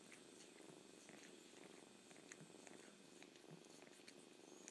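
Faint, steady cat purring, with soft wet licking clicks as an adult cat grooms a kitten.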